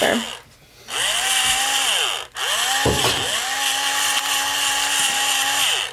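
Electric pepper grinder grinding peppercorns in two runs, a short one and then a longer one. Each run whirs up to speed and winds down when it stops.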